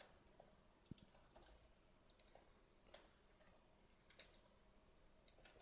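Near silence with a few faint, scattered clicks of a computer mouse and keyboard.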